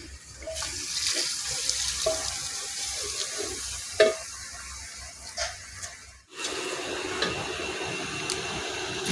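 Water running from a tap into a sink or vessel, with a few short knocks, the loudest about four seconds in. It cuts off abruptly about six seconds in, and a different steady hiss follows.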